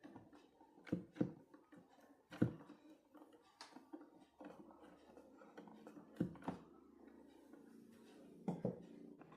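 Quiet, scattered light knocks and clicks of small parts and tools being handled on a work surface, several of them in quick pairs.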